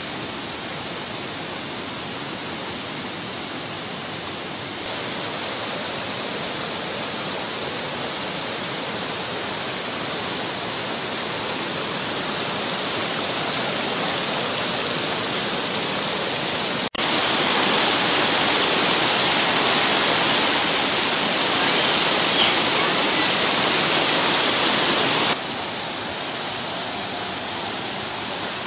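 Mountain stream rushing over rocks and boulders, a steady wash of water noise. It jumps louder just past halfway and drops back a few seconds before the end.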